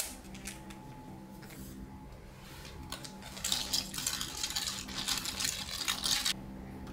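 A metal stirrer swirled fast in a glass of iced kombucha, rattling and clinking against the glass and ice for about three seconds before stopping abruptly. A few light clicks come before it.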